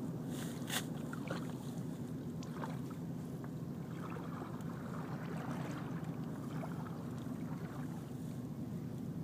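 Water splashing and dripping in small irregular bursts around a kayak and its paddle, over a steady low rumble.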